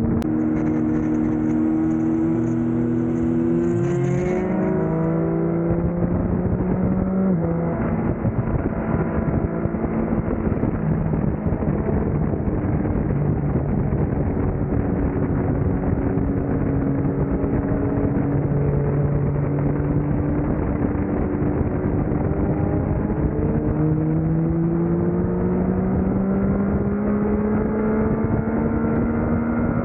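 A Yamaha MT-09's 890 cc inline-three engine through a Yoshimura R11 exhaust, under way on the road. The engine note drops a few seconds in, holds steady at cruising revs through the middle, then climbs as the bike accelerates near the end.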